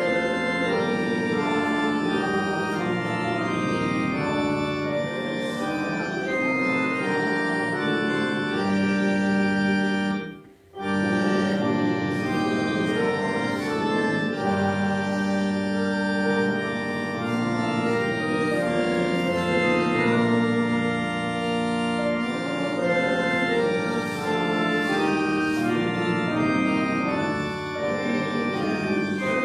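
Church organ playing a hymn in sustained, full chords, with a short break about ten seconds in before it goes on.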